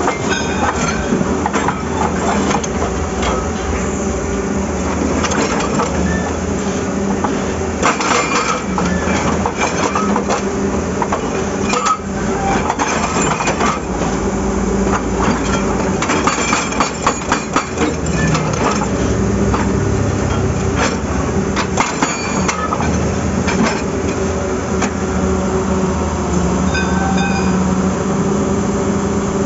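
Excavator diesel engine running steadily while its hydraulic breaker hammer chatters against asphalt and rock, with rapid runs of blows, the densest about two-thirds of the way through.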